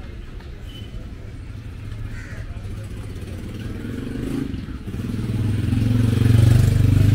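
Motorcycle engine running as it rides past close by, growing louder from about four seconds in and loudest near the end.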